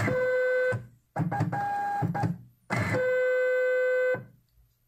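Zebra GK420t label printer's feed motor whining in three short runs, the middle one higher in pitch, as it advances the labels after a single press of the feed button. This is the feed meant to align the media sensor to the next label, on a printer that is being sold for parts or repair.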